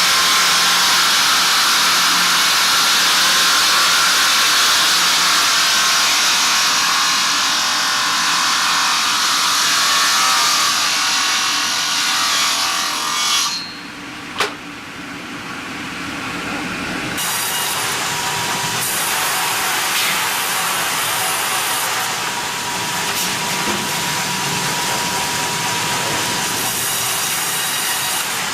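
Sawmill machinery sawing timber: a loud, steady, hissing saw sound through wood that drops away abruptly about halfway through, with a single sharp click, then picks up again as a different saw running.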